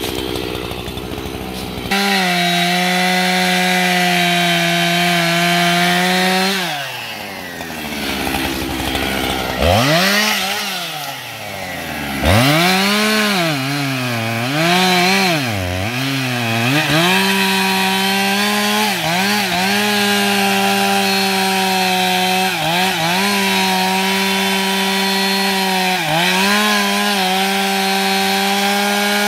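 Husqvarna 272XP two-stroke chainsaw at full throttle cutting into a tree trunk. The revs fall off a few seconds in and are blipped up and down several times. The saw then holds high revs in the cut with brief dips under load, and drops away right at the end.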